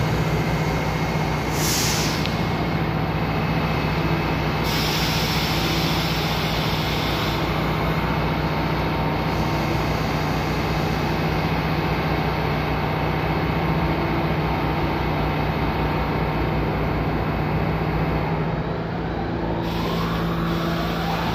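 New York City subway A train standing at the platform, its steady hum running throughout, with air-brake hisses about two seconds in and again from about five to seven seconds. Near the end a rising whine starts as the train's motors begin to pull it away.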